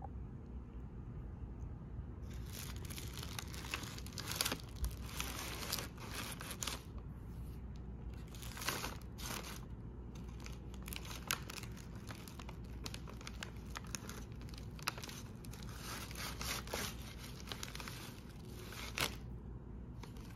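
Paper bag and wax-paper wrapper crinkling and rustling in irregular bursts as a donut is unwrapped by hand. The rustling starts about two seconds in and stops just before the end.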